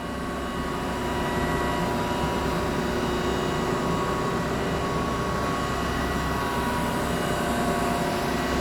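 Chevalier CGP-816 CNC cylindrical grinder running: a steady machine hum with several constant whining tones, swelling a little over the first second and then holding even.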